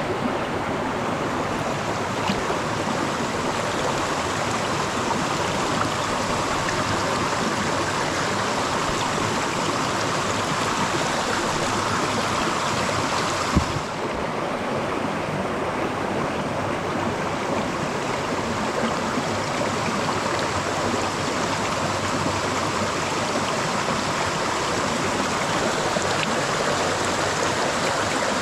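Mountain stream water rushing over rocks, a steady even flow. A single sharp knock sounds about halfway through.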